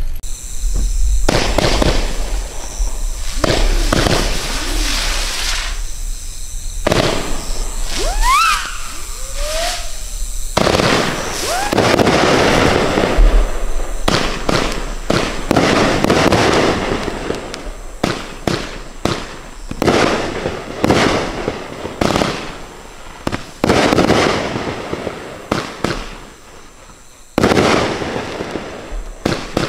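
A 36-shot consumer fireworks cake firing: launch thumps and aerial bursts in quick succession, with a couple of rising whistles about eight to nine seconds in. It thins out near the end, then a last loud burst comes.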